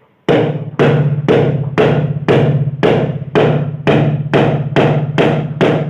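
Music with a steady percussion beat: sharp drum-like strikes about two a second over a held low note, starting suddenly.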